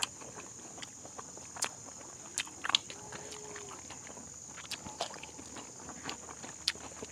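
Mukbang eating sounds: scattered sharp clicks and crunches of chewing crisp fried food and of lip smacks as several people eat with their hands, over a steady high-pitched hiss.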